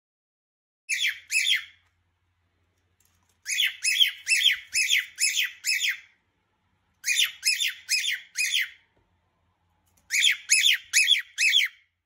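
Small pet parrot giving short, sharp squawking calls in quick runs: a pair about a second in, then three longer bursts of five to seven calls with pauses between. This is the loud repeated calling shown as an example of hormonal behaviour.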